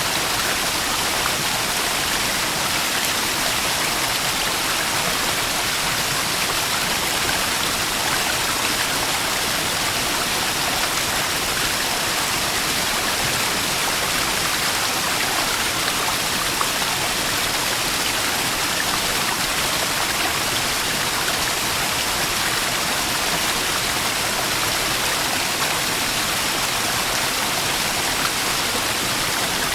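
Small waterfall splashing and rushing steadily, a constant hiss of falling water.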